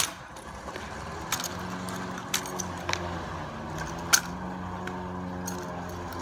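Sharp slaps and clacks of a drill rifle being handled, spun and caught during an exhibition drill routine, the loudest right at the start and another about four seconds in. A steady low drone sets in about a second and a half in underneath.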